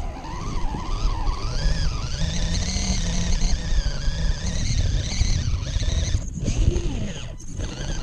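Radio-controlled rock crawler's electric motor and geared drivetrain whining, the pitch rising and falling with the throttle as it crawls over loose dirt, over a low rumble. The whine drops out briefly twice near the end.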